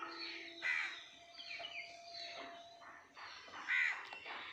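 Birds calling outdoors: scattered short chirps, with a louder call near the end.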